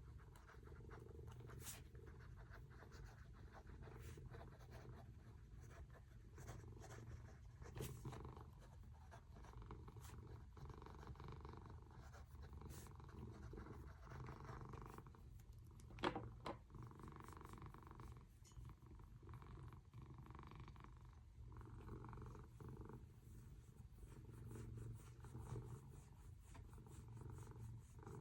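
Near silence: room tone with a faint, steady low rumble and a single light click about sixteen seconds in.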